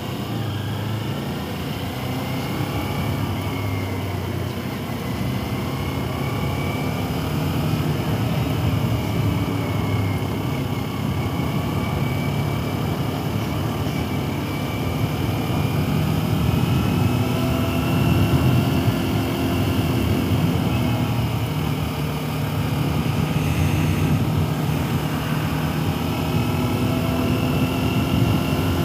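Sport motorcycle's engine running while riding, its pitch rising and falling as the revs change, over steady road and wind noise.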